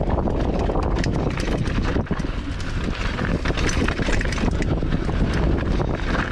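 Mountain bike rolling fast down a rocky dirt trail: wind rushing over the microphone, tyres crunching on gravel, and many quick clicks and knocks as the bike rattles over stones.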